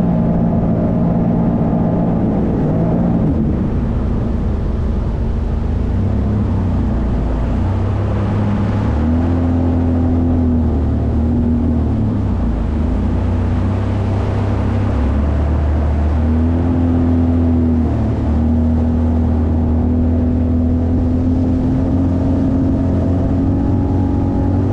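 Jet ski engine running under way over a steady rushing noise, its note dipping and recovering about halfway through and then climbing slowly near the end.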